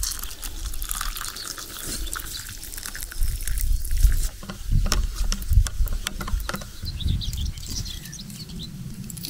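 Just-boiled water poured from a camping kettle into a plastic cup of tea, splashing over a spoon and tea bag. Wind rumbles unevenly on the microphone underneath, in gusts.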